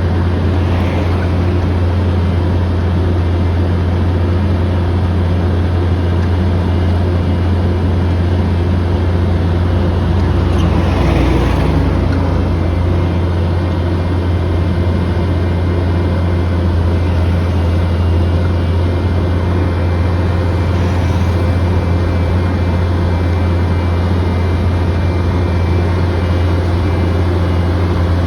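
Diesel engine of an Apollo A900 horizontal directional drilling (HDD) rig running steadily under work, heard from inside the machine as a deep, constant hum with mechanical noise over it. It grows briefly louder and rougher about eleven seconds in.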